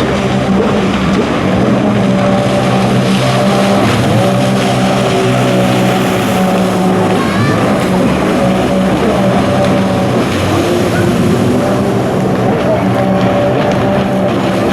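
Jet ski engines running at racing speed, a steady mechanical drone whose pitch steps up and down as the riders work the throttle.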